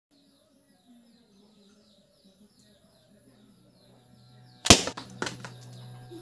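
A balloon bursting with one sharp bang, hit by a shot from a homemade bamboo slingshot bow, followed about half a second later by a second, weaker crack.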